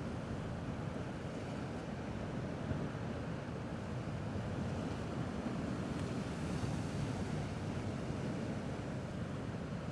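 Gentle sea waves washing against a rocky shore, a steady wash that swells slightly about six to seven seconds in.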